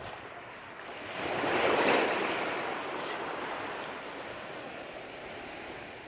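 Sea wave breaking and washing in: a rushing swell that builds about a second in, is loudest around two seconds, then slowly dies away.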